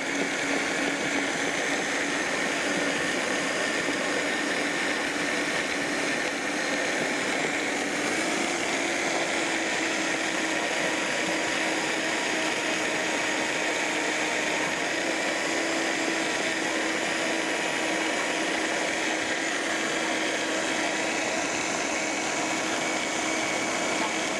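High-speed countertop blender running continuously, puréeing cooked potato, carrot and other vegetables with a little water into a thick, smooth sauce. A steady, loud motor whine over churning, whose pitch steps up about eight seconds in.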